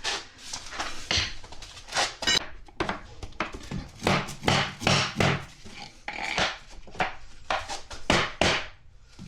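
Repeated irregular knocks and taps of vinyl flooring planks being hammered into place, about two a second, with a few louder strikes.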